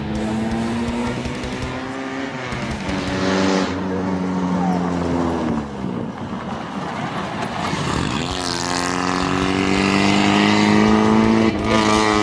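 Rally car engines revving hard as the cars accelerate along a dirt stage, several short clips in a row. The engine pitch climbs repeatedly as each car pulls through the gears, falls away about halfway through, then climbs strongly again near the end.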